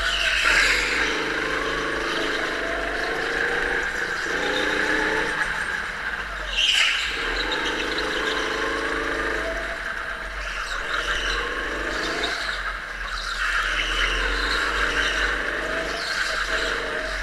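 Go-kart engine heard from the driver's seat, its revs rising and falling again and again through the corners of a tight track. A short tyre squeal comes about seven seconds in.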